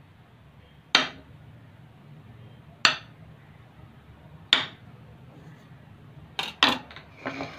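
Kitchen knife chopping a bar of soap, the blade striking through onto a stone countertop with a sharp clink four times, a couple of seconds apart. Near the end come a few quicker knocks and a short scrape.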